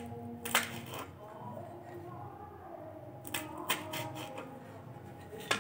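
Cleaver chopping green chillies on a plastic cutting board: one sharp chop about half a second in, then a quick run of about five chops a little after three seconds, and another chop at the very end.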